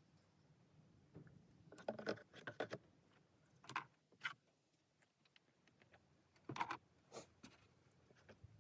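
A few short clicks and scrapes from plastic quart bottles of engine oil and a funnel being handled while oil is poured into the engine. Otherwise near silence.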